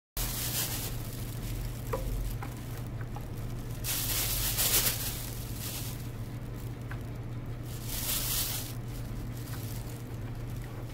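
Fresh mugwort sprigs rustling as they are dropped and handled on a bamboo steamer tray, in three short spells, with a few light clicks. A steady low hum lies underneath.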